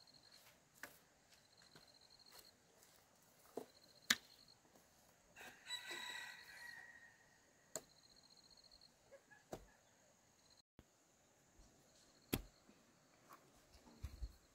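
A rooster crows once, about five and a half seconds in. Faint sharp knocks come every second or two, and a faint high pulsing chirp repeats in short bursts.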